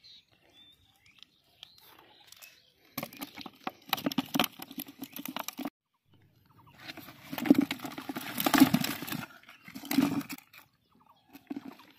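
Live climbing perch (koi) flapping in a black plastic bucket: a fast rattle of fish bodies and tails slapping the plastic and each other, in several bursts, the loudest about halfway through and another short one near the end.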